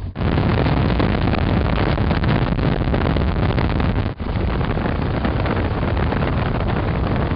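Steady loud rush of wind buffeting the microphone together with vehicle road noise while driving, broken by a short cut about four seconds in.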